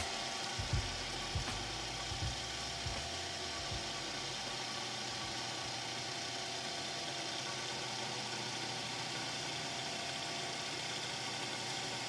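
Drilling machine running steadily as its bit drills holes in a small metal buffer-beam angle, with a few low knocks in the first few seconds.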